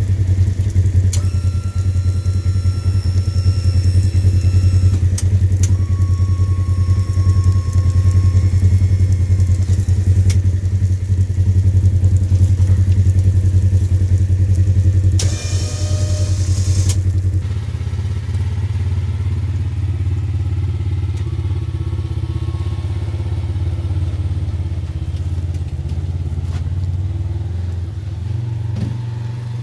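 Polaris RZR XP1000's twin-cylinder engine running steadily up close, with a brief whine about halfway through. After a cut, it is heard farther off and less even as the side-by-side pushes snow with its plow.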